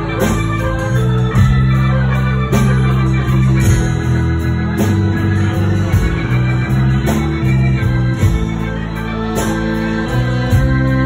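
Live band playing an instrumental passage: electric bass guitar and strummed acoustic guitar with a bowed fiddle, long held notes over a steady beat of about one stroke a second.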